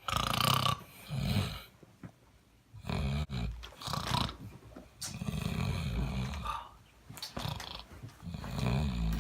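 A person snoring heavily in bed: a run of rasping, throaty snores, about seven in nine seconds, some short and some long and drawn out, with brief pauses for breath between them.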